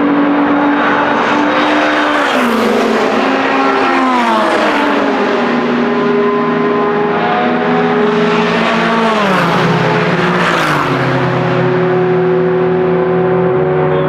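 Endurance race cars (prototype Hypercars and a GT car) driving past at racing speed, their engines howling. The engine notes drop in pitch several times as the cars go by, about two seconds in, again about four seconds in, and twice more near ten seconds.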